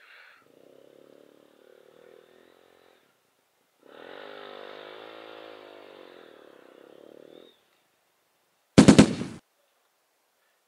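Trail motorcycle engine running at a fairly steady speed in two short stretches that start and stop abruptly, separated by dead silence. Near the end there is a brief, very loud crackling burst.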